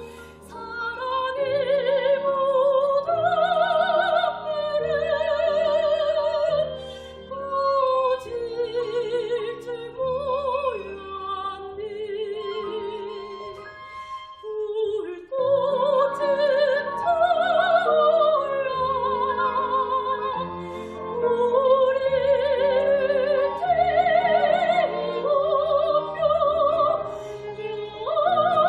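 Soprano singing a Korean art song (gagok) with strong vibrato, accompanied by piano and violin. There is a brief lull about halfway through before the voice comes back in.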